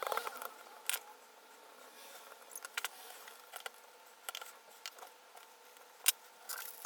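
Irregular small clicks, taps and brief light scrapes of hand work on an open laptop's parts, with one sharper click about six seconds in.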